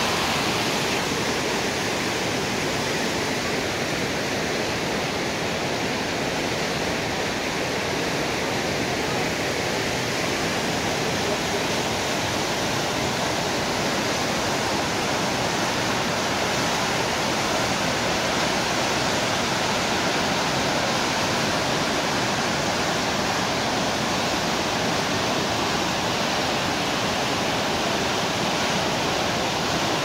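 The Rhine Falls, a large river waterfall, giving off a steady rush of falling and churning water.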